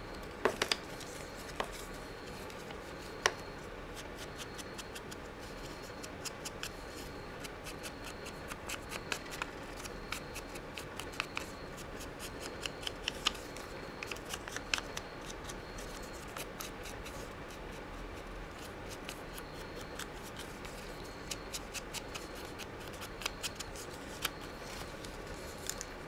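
Foam ink blending tool dabbed on an ink pad and scrubbed along the edges of a torn paper bird picture: irregular runs of quick, light taps and scratches.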